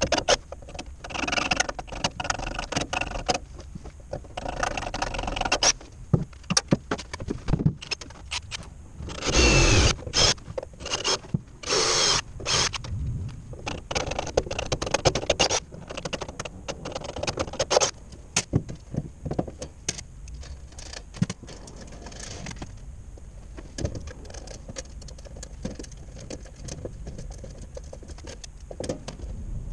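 Hand-tool work on stainless sheet-metal panels and slotted strut channel: irregular metallic clinks, rattles and scrapes, with louder clatters about ten and twelve seconds in.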